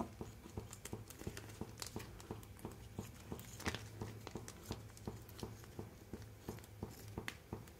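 Scissors snipping through a thin plastic milk packet, with faint irregular clicks and crinkles of the film and a couple of louder snips about two and four seconds in.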